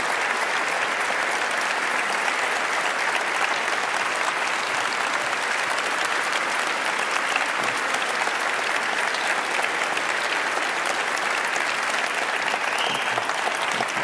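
Large audience applauding steadily: a dense, even sound of many hands clapping.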